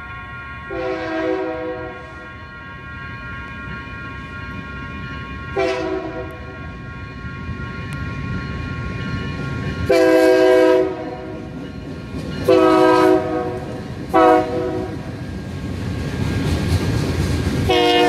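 Multi-chime train horn sounding six blasts of a chord, long, short, long, long, short, long, the last four in the long-long-short-long pattern blown for a grade crossing. A low rumble of the approaching train grows toward the end.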